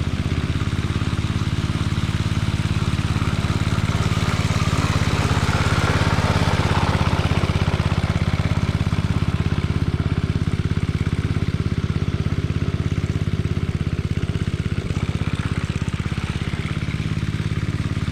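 Locke Triplex reel mower running with its reels engaged: a steady engine drone, with a higher-pitched rush of mechanical noise swelling around the middle and easing off.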